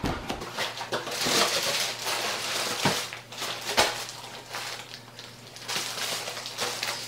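Plastic-wrapped, rolled memory foam crib mattress being pulled out of a cardboard box: the plastic wrapping crinkles and rustles against the cardboard, with a couple of sharp knocks near the middle.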